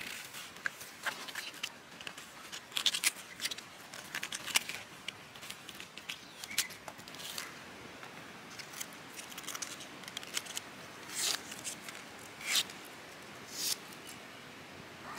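A large knife blade slicing through raw jackfruit bulbs, with fingers pulling the flesh apart: a run of short, crisp cuts, quick and irregular for the first few seconds and then fewer and more spaced out.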